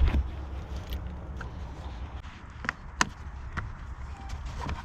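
Sharp plastic clicks and knocks, about half a dozen, as a car's interior trim panel is pushed back into place, over a low handling rumble.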